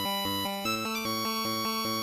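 Electronic background music: a quick repeating pattern of short notes over a steady bass.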